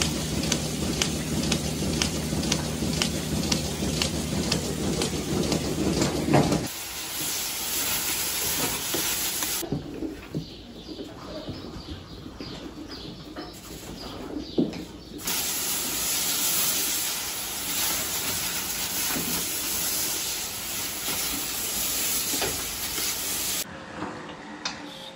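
Dairy milking machinery: a steady hiss of air and vacuum with regular ticking over the first few seconds. The sound changes abruptly several times.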